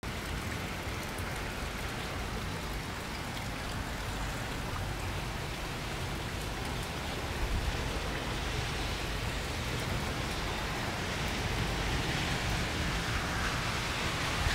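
Steady rainfall: an even hiss of rain with a low rumble underneath, growing slightly louder toward the end.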